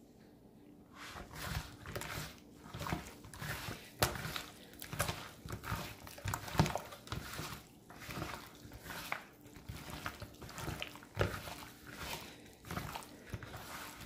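Gloved hands squishing and kneading raw chicken wings in a wet marinade of egg, soy sauce, flour and cornstarch: irregular wet squelches and slaps in the bowl, starting about a second in.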